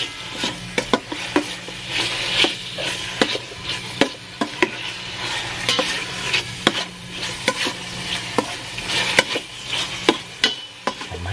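Chicken fillet pieces and onion frying in hot oil in a pan, sizzling steadily while a utensil stirs them, with frequent sharp clicks of the utensil against the pan.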